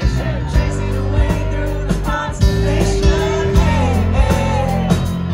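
Rock band playing live through a concert PA: a male lead vocal sung over drums, bass, guitar and keyboard.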